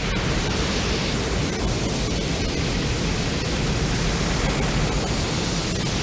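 Loud, steady rushing noise with no pitch to it, a monster-film sound effect that starts abruptly.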